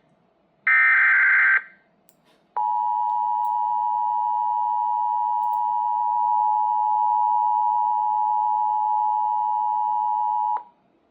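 Emergency Alert System (EAS) broadcast being relayed. About a second in there is a short screeching burst of SAME digital header data, the last of the header bursts. After a one-second pause comes the EAS two-tone attention signal, held steadily for about eight seconds and then cut off sharply, marking the start of a relayed warning.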